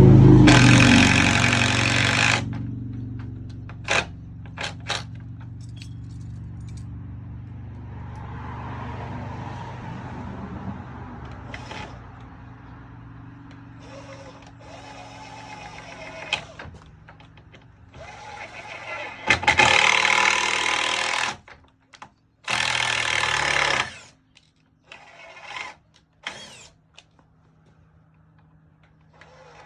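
Power drill driving screws into wood in short, loud runs: one at the start, then two more about twenty seconds in, with sharp knocks and handling clicks between.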